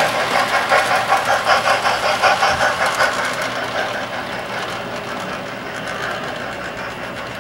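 Model train running on the layout's track: a rhythmic clatter of about three beats a second for the first few seconds, then a steadier, softer running noise.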